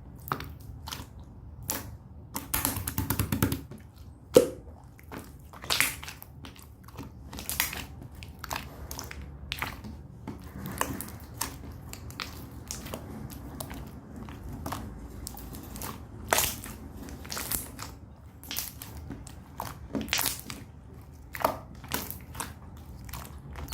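Irregular crunches and clicks at uneven intervals, with a denser crackling stretch about three seconds in and one loud snap just after.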